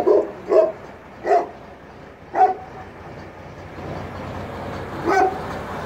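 A dog barking five times, in short single barks spaced unevenly, over the steady low running of the tipper truck's engine.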